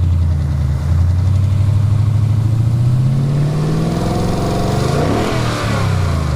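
2018 Ford Mustang GT's 5.0 V8 engine running, its pitch drifting up and down. The typewriter-like ticking rattle is practically gone, greatly improved after about 500 miles with an oil additive.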